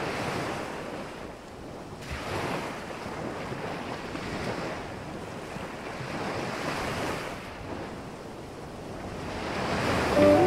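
Sea waves washing, a steady rush of surf that swells and eases every few seconds. Music begins right at the end.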